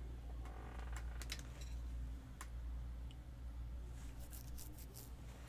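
Faint scattered clicks and light rattles of small objects and tools being moved about on a work surface, over a steady low hum.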